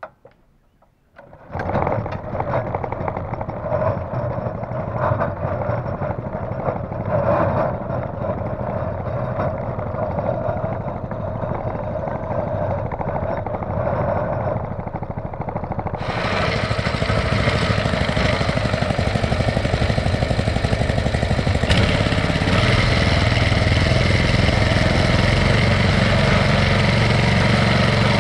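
A 5.5 hp single-cylinder general-purpose engine rigged as a long-tail boat motor starts about a second and a half in and keeps running. From about 16 seconds in it grows louder and fuller as the long-tail propeller churns the water.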